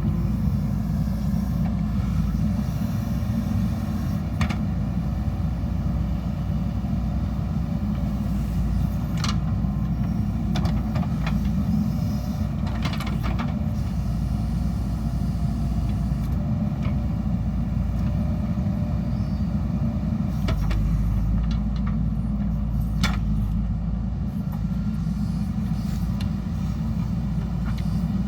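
JCB 3DX Super backhoe loader's diesel engine running steadily under work, with a few sharp knocks scattered through it.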